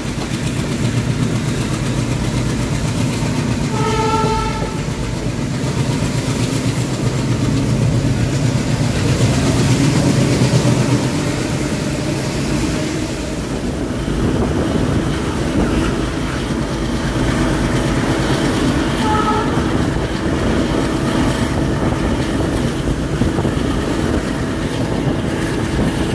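Express passenger train running, heard from on board: a steady rumble of wheels on rail. The ALCO diesel locomotive's horn sounds a short blast about four seconds in, and a fainter brief one just after the middle.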